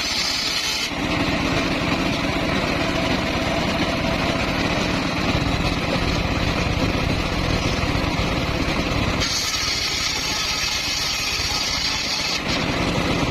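Sawmill circular saw running steadily, its tone changing about a second in and again about nine seconds in.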